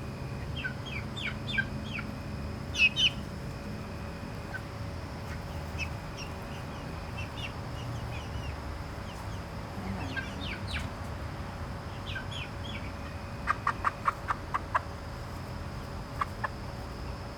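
Chicken hens clucking and calling in short, scattered notes, one hen calling the flock to her, with a quick run of about eight sharp calls a little past three-quarters of the way through.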